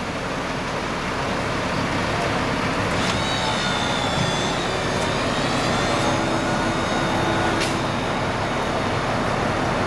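Diesel semi-truck running as it slowly pulls a heavy trailer into the building, a steady engine and rolling noise, with a thin high-pitched squeal from about three to five seconds in.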